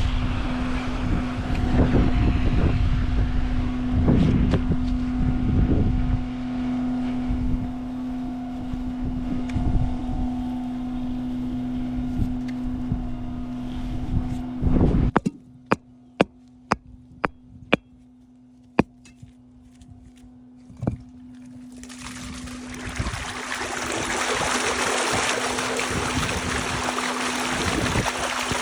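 Pump truck's engine running with a steady hum and some knocking and scraping. The loud noise cuts off abruptly about halfway, a quick run of sharp clicks follows, and a steady rushing hiss builds up near the end.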